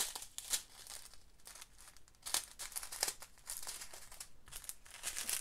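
Small plastic bags of diamond-painting drills crinkling and rustling as a hand rummages through the pile and picks one up, in irregular short crackles and clicks.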